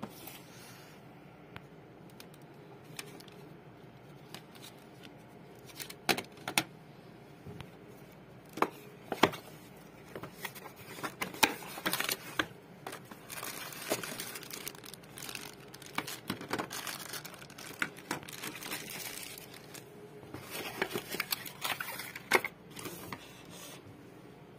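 A cardboard box being opened by hand and plastic-bagged contents crinkling and rustling as they are lifted out, with scattered light knocks and clicks. The rustling comes in several spells, busiest in the second half.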